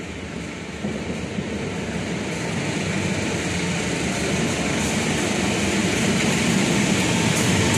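Approaching train: a diesel locomotive's engine and the rumble of the train on the rails, growing steadily louder as it nears.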